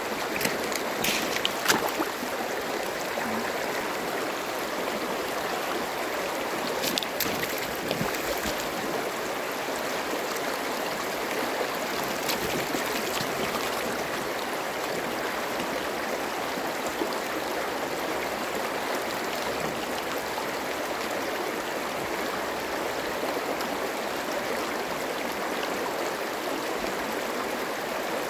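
Shallow river rushing and rippling over a bed of pebbles and stones, a steady running-water sound, with a few short clicks in the first several seconds.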